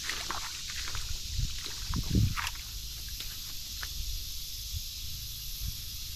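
A hooked fish splashing at the water's surface while wind rumbles steadily on the microphone, with a few faint clicks and a louder low thump about two seconds in.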